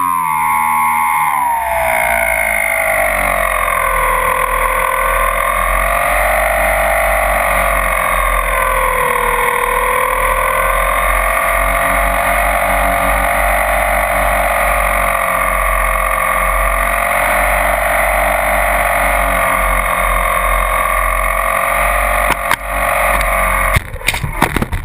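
The twin brushless electric motors of a Multiplex TwinStar RC plane whine, heard from the camera on board, over a low rush of wind noise. The pitch falls over the first few seconds, then wavers up and down. Near the end, knocks and scraping break in as the plane touches down and skids to a stop, cutting the motor sound off.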